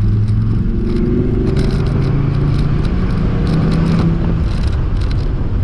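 Dodge Viper SRT's 8.4-litre V10 engine running hard on track, heard from inside the cabin. Its pitch rises through the first couple of seconds as the car accelerates, then holds steadier.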